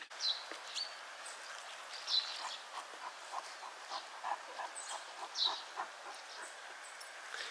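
Woodland ambience: a few short, faint bird chirps over a steady outdoor hiss, with light scattered ticks.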